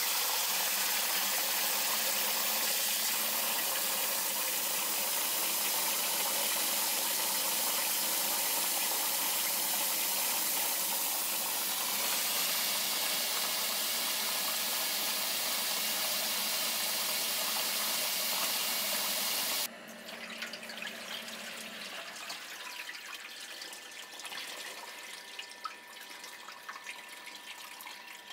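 Tap water running hard into a stainless steel bowl of salmon roe being rinsed in a sink. The flow cuts off suddenly about two-thirds of the way through, leaving quieter dripping and trickling water as the bowl drains.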